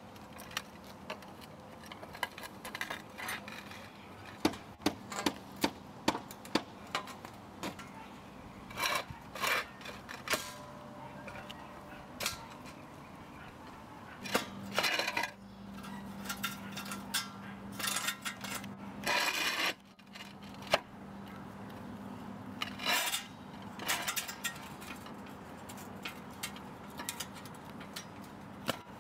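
Roof tiles and metal mounting brackets being handled on a tiled roof: irregular clinks, knocks and short scrapes of tile and metal. A faint steady hum runs through the middle stretch.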